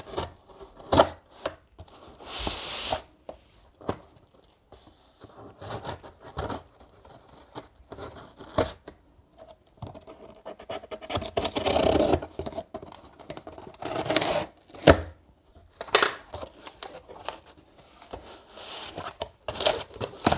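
Cardboard shipping box being opened by hand: tearing, scraping and rustling in irregular bursts, with a few sharp knocks.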